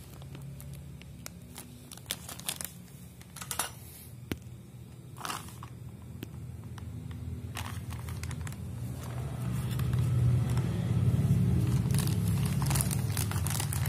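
Plastic packaging bags crinkling as they are handled: a small bag of mounting screws, then a bag of wiring-harness cables. A low steady hum builds about halfway through and is the loudest sound in the second half.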